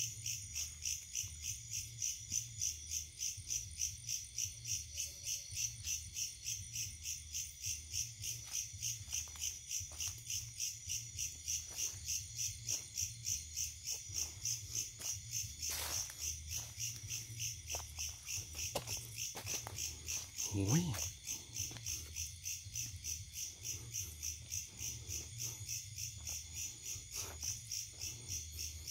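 A chorus of insects, cricket-like, chirring in even pulses about three times a second. Scattered light clicks and one louder low knock about twenty seconds in.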